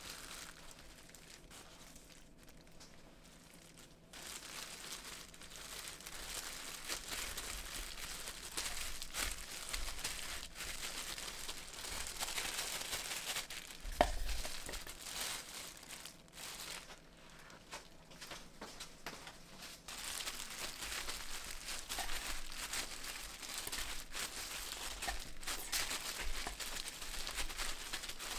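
Crinkly packaging rustling and crackling as it is handled, with one sharp knock about halfway through.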